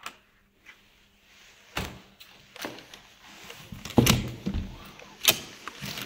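A string of knocks and clatters at irregular intervals, the loudest about four seconds in.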